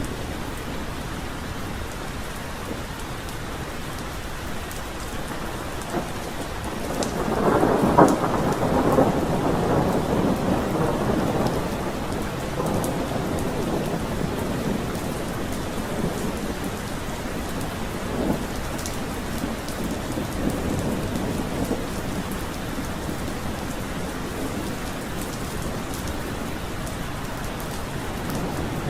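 Steady heavy rain falling through a thunderstorm. A rumble of thunder swells about seven seconds in, is loudest a second later and rolls on for several seconds before fading back into the rain. Another thunderclap begins right at the end.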